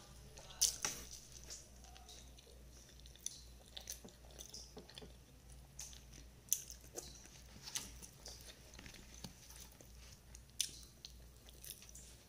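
Close-up chewing and mouth sounds of a person eating rice and fried eggplant by hand: soft wet smacks and scattered sharp clicks, the loudest about half a second in.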